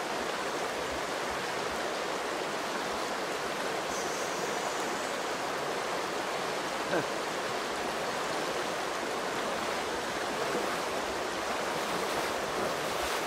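Fast river rushing over granite boulders: a steady, even rush of water.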